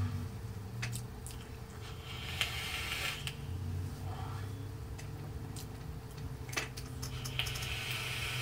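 A person vaping on a rebuildable dripping atomizer: long airy exhales of vapour, then another drag through the device near the end, with a few short clicks.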